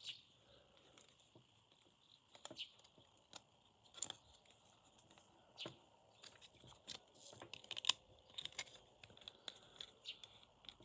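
Faint, scattered clicks and light taps of the small plastic parts of a Logitech M185 wireless mouse being handled and pried apart, coming more often in the second half.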